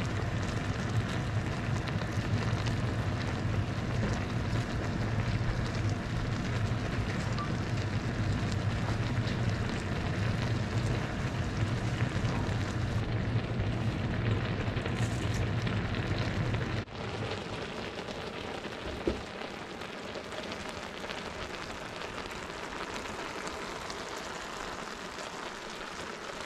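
Pasta and vegetables simmering in broth in a stainless frying pan over a gas burner, a dense crackling bubble with a steady low hum underneath. About two-thirds of the way through, the hum stops and the simmering goes on more quietly, with one sharp click a couple of seconds later.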